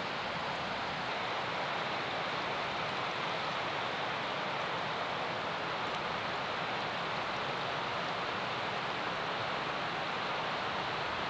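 Steady, even rushing noise of open-air ambience with no distinct events.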